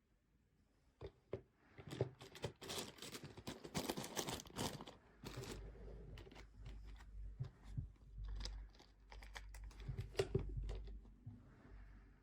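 Close handling noise: a run of irregular clicks and knocks with rustling and crinkling, like plastic items and packaging being moved about, busiest in the first half and again near the end.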